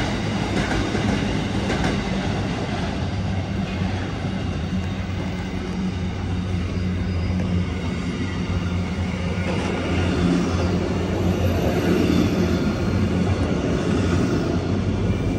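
Container wagons of a long freight train rolling past close by: a steady rumble of steel wheels on the rails, with a continuous low hum beneath it.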